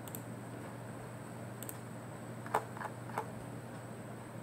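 A few scattered light clicks from computer input during scrolling, over a steady low hum of room tone.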